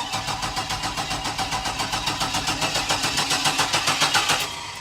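1999 Chevy Blazer's 4.3-litre V6 being cranked by the starter in an even rhythm, about five pulses a second, stopping after about four and a half seconds without the engine catching. It cranks but won't fire, which the owners suspect is an empty fuel tank.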